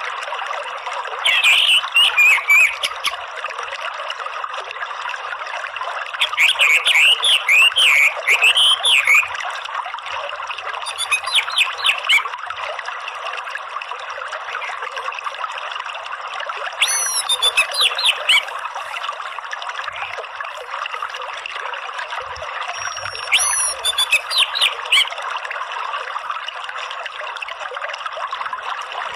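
Orange-headed thrush (anis merah) calling in about five bursts of fast, twittering chatter, the 'ngeriwik' call, over the steady rush of running water.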